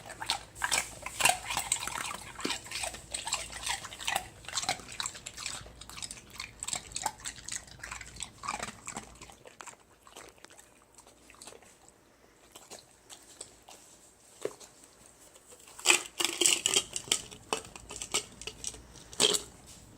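Pit bull crunching and chewing ice cubes: a dense run of sharp cracks that thins out about halfway through, then another burst of crunching near the end.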